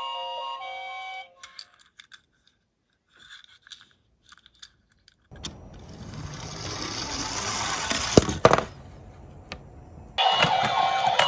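A toy siren tone stops about a second in, followed by light clicks of a die-cast minicar being handled. From about halfway the minicar rolls down a slope with a rising rumble and knocks sharply a couple of times, then an electronic siren starts up again near the end.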